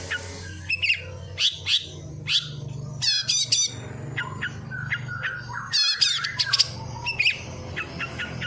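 A songbird singing a varied run of short chirps, harsh squawky notes and quick trilled phrases, imitating sparrow and prinia calls.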